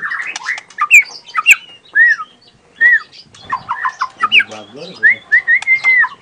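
Young white-rumped shama (murai batu) singing: a varied run of short whistles, chirps, clicks and arched slurred notes, with a quick string of notes a little past the middle.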